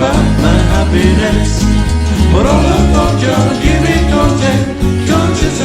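Instrumental intro of a 1960s country song: plucked guitar and banjo-like picking over a bouncing bass line with a steady beat.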